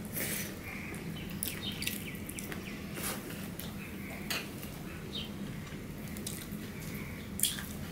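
People eating rice and chicken with their hands: wet chewing and lip-smacking clicks, with fingers working the food on ceramic plates, scattered irregularly over a steady low hum.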